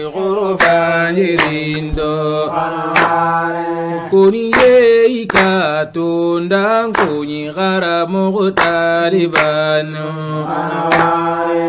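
Soninke religious chant: a voice sings long, ornamented notes that slide between pitches over a steady low held note. Short sharp accents recur every second or so.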